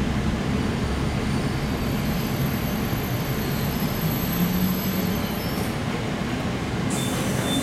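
EP2D electric multiple unit on the move, heard from inside a carriage: a steady rumble of wheels on rail with a thin high electrical whine. The whine fades out about six seconds in, and a new, lower whine starts just before the end.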